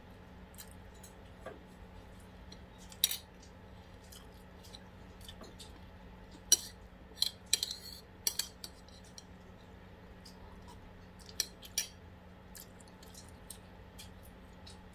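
Cutlery and dishes clinking in sharp, scattered taps during a meal: one about three seconds in, a cluster between about six and a half and eight and a half seconds, and a pair near twelve seconds, over a faint steady hum.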